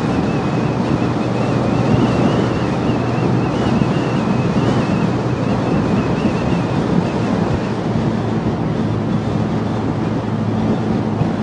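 Wind rushing over a helmet camera's microphone on a moving motorcycle, with the Honda CB150R's single-cylinder engine running steadily underneath. A thin, wavering high whine sits over the rush and fades out after about seven seconds.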